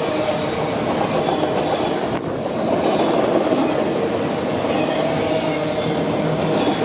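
Freight train of autorack cars rolling past close by: the steady running noise of steel wheels on rail and rattling car bodies, with a thin steady whine running through it.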